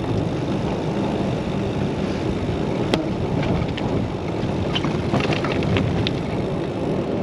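Wind buffeting the microphone during a bicycle ride: a steady rumbling rush, with a few light clicks in the middle.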